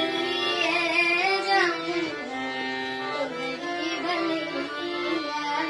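A young girl singing a melodic Indian song with gliding, ornamented notes, over instrumental accompaniment.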